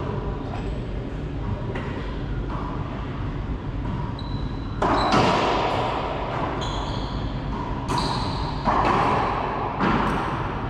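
Racquetball rally: the ball cracking off racquets and smacking against the court walls and floor, each hit echoing loudly in the enclosed court. The hits come irregularly, a few lighter ones early and the loudest about halfway through and near the end.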